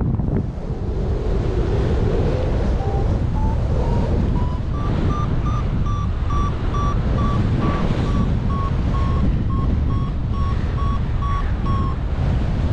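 Wind rushing over the microphone in flight, with a paragliding variometer giving quick beeps from about three seconds in. Their pitch rises and then holds steady, the vario's signal of climbing in lift, and they stop near the end.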